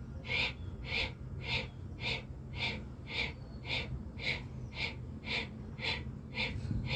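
Bhastrika pranayama bellows breathing: a woman breathing in and out forcefully in an even rhythm, about two strokes a second, with inhale and exhale kept the same length.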